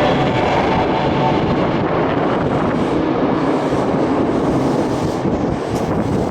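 Subway train running through an underground station platform: a steady loud rumble that eases a little toward the end.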